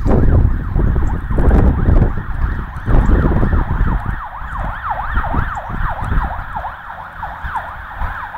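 An emergency-vehicle siren wails in quick rising and falling sweeps, about two a second, plainest in the second half. Over the first half, loud low rumbling comes in bursts and covers it.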